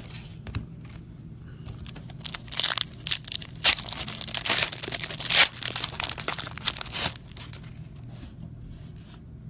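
Trading-card pack wrapper crinkling and tearing as a pack of football cards is opened, in a string of rustling bursts lasting about four seconds.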